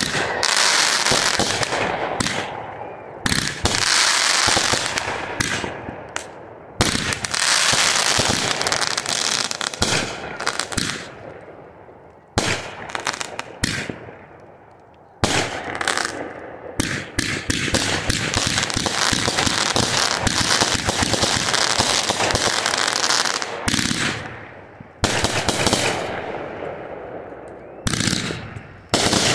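Aerial fireworks going off: rapid strings of bangs and crackling. There are several short lulls, each ended by a sudden fresh volley.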